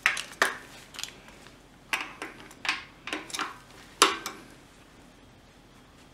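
Hand socket ratchet on a long extension turning the starter-motor mounting bolts: short bursts of metallic ratcheting clicks and clinks, about eight of them over the first four seconds, the loudest about four seconds in.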